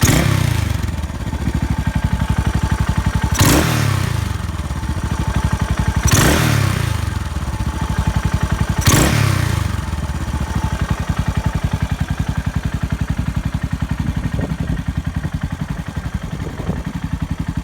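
Yamaha SR400 single-cylinder four-stroke engine idling, blipped four times about three seconds apart, each rev rising quickly and falling back, then settling into a steady, even idle.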